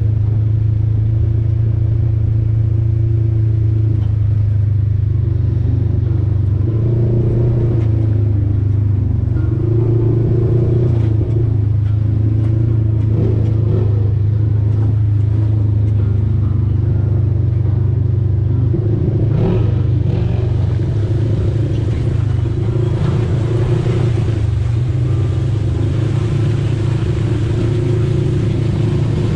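Polaris RZR side-by-side engine running steadily at trail speed, heard from inside the cab, with a few brief knocks about two-thirds of the way through.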